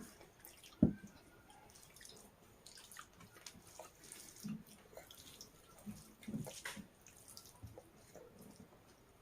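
Close-up eating sounds: scattered small wet clicks and smacks of chewing, with one sharp knock about a second in.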